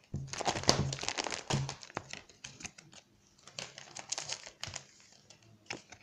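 Trading cards and plastic packaging handled close to the microphone: crinkling with quick light clicks, busiest in the first two seconds and again about four seconds in.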